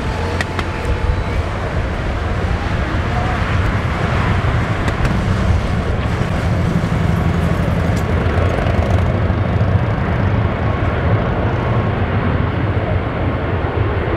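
Boeing 767-300ER's jet engines running at low taxi power: a steady low engine noise with a faint hum.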